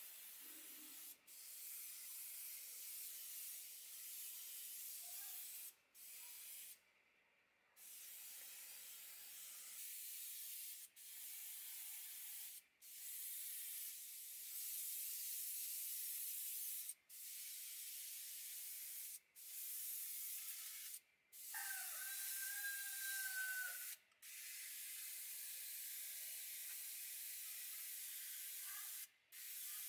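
Paint being sprayed in a run of bursts: a steady hiss held for one to four seconds at a time, each burst cut off by a short pause. A brief whistling tone, sliding up and then holding level, sounds about two-thirds of the way through.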